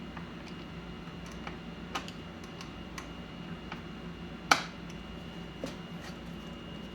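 Scattered light clicks and taps of small tools and parts being handled, with one sharper click about four and a half seconds in, over a steady low hum.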